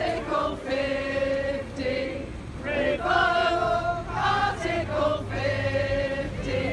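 A group of people singing together in chorus, a simple chant-like tune with notes held for about a second each.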